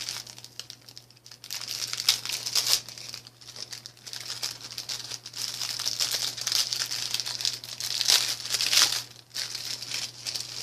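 Plastic bags crinkling irregularly as they are handled, in uneven bursts throughout and loudest about two seconds in and again near the end, over a faint steady low hum.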